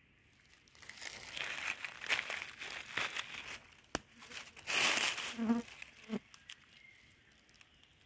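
Dry leaf litter rustling and crackling as a hand digs in and pulls a porcini mushroom out of the ground, with a sharp click about four seconds in. The crackling is loudest about five seconds in and dies away near the end.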